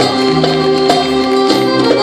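Live Bosnian sevdalinka band playing: acoustic guitars, violin and a hand drum keeping a steady beat.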